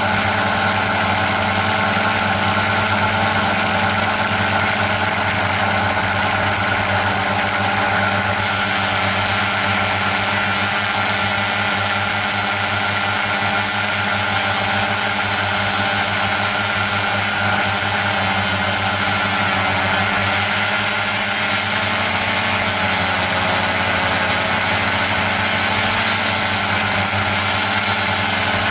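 Quadcopter drone's electric motors and propellers humming steadily, with the pitch shifting a little now and then as the motor speeds change.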